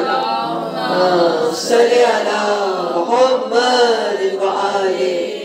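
A voice chanting in long, drawn-out melodic phrases.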